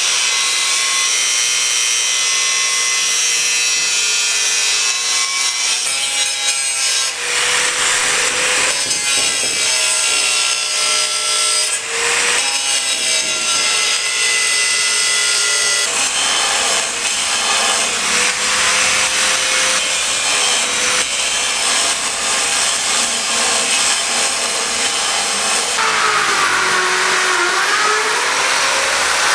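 A power tool cutting, its motor whine sagging and recovering with the load over a rasping noise; the pitch dips markedly near the end.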